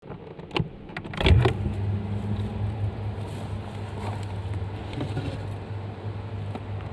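A few knocks, the loudest about a second in, then a refrigerator's steady low electrical hum.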